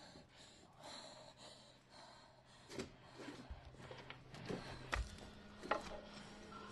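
A woman's faint, nervous breathing and gasps. A few light knocks and a low steady hum lie underneath; the hum steps up in pitch about five seconds in.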